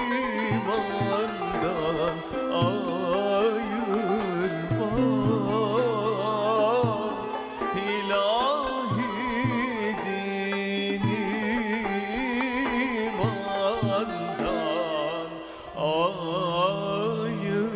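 A man singing a Turkish Sufi hymn (ilahi) in a live studio performance, his voice wavering through ornamented runs over instrumental accompaniment with a steady percussion beat.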